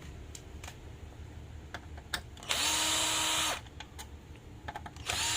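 Small electric screwdriver or drill running in two short bursts, about a second in the middle and again starting near the end, backing screws out of a plastic device case, with a few light handling clicks before.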